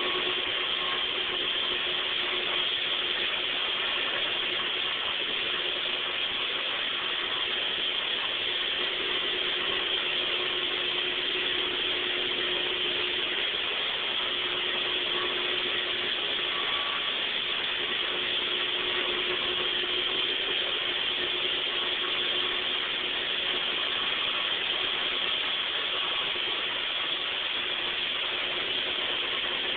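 MasterCraft rotary floor machine running steadily, buffing a marble floor: an even whir with a steady low hum that holds at one level throughout.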